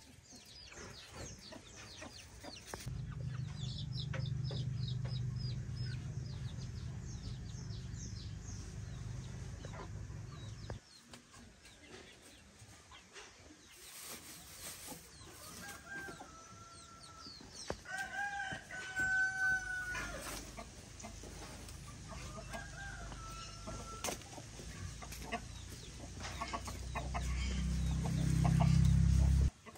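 Chickens clucking, with a rooster crowing three times in the middle, the second crow the longest and loudest. A low rumble runs through the first part and swells to the loudest sound near the end before cutting off suddenly.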